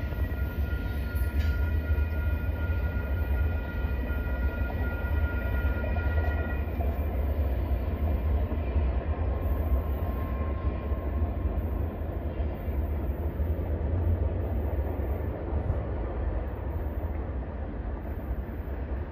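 Freight train rolling away on a curve: a steady low rumble of the cars on the rails, with a thin high squeal that stops about six and a half seconds in.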